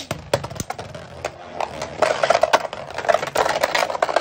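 Two Beyblade Burst spinning tops whirring and rattling across a plastic stadium floor just after launch. They give a dense run of rapid clicks and scrapes as they skid and knock about the stadium, growing busier about two seconds in.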